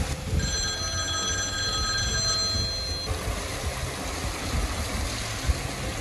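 Rushing water of a small waterfall pouring into a pool. About half a second in, a cluster of high, steady, bell-like tones rings together for about two and a half seconds, then cuts off suddenly.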